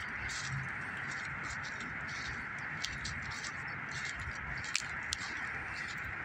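Light rustling and scratching of shrub branches and footsteps on dry dirt as someone pushes through brush, with irregular small ticks, over a steady high hissing drone.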